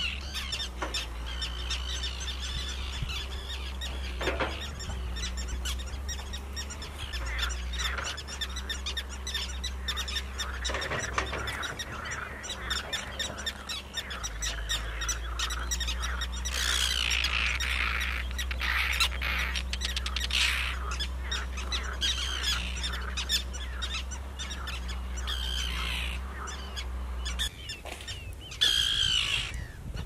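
Colony of common terns calling, many short calls overlapping, denser in the second half and loudest near the end.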